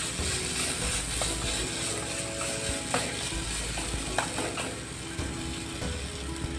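Wooden spatula scraping and pressing a thick spice paste around a nonstick pan, with a steady sizzle as the paste fries dry without water. There are a couple of sharp clicks of the spatula against the pan, about three and four seconds in.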